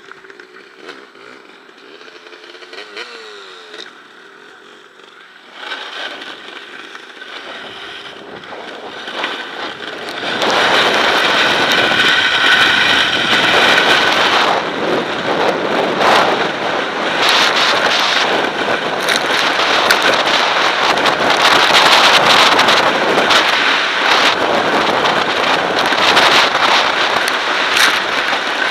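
A KTM EXC 300 two-stroke dirt bike engine running with a wavering note, then, from about ten seconds in, a loud steady rush of scraping noise as the sled is towed at speed over the snow-covered ice, broken by many sharp knocks and cracks.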